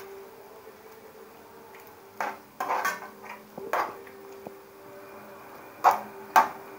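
A spoon stirring morel mushrooms in sour cream in a nonstick frying pan, scraping and knocking against the pan about five times, the sharpest two near the end. A steady low hum runs underneath.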